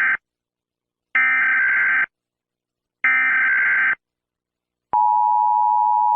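Emergency Alert System SAME header: buzzy one-second bursts of fast digital data tones, the tail of one burst ending just after the start and two more following about a second apart. About five seconds in, the steady two-tone EAS attention signal begins, announcing an emergency alert message.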